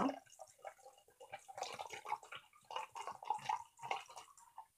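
Water glugging out of the neck of a tilted glass wine bottle into a measuring jug: a run of irregular gurgles as air bubbles back into the bottle.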